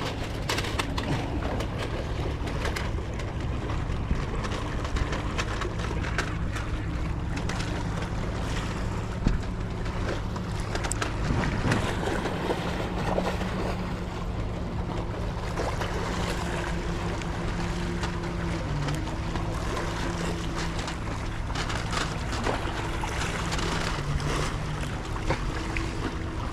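A motor hums steadily, its pitch stepping up or down a few times, over a constant rush of wind or water noise.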